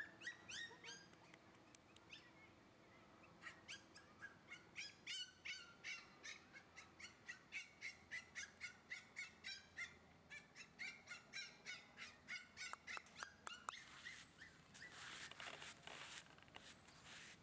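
Faint bird calls: short rising chirps repeated about two or three times a second, then a rushing hiss for a few seconds near the end.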